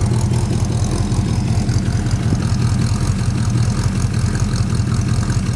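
Plymouth Suburban wagon's engine idling with a steady low rumble and an intermittent misfire that pops every so often; the owner suspects an intake manifold air leak.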